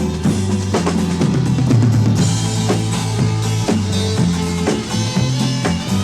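Rock band playing an instrumental passage without singing: a drum kit with bass drum, snare and rimshots over a moving bass line.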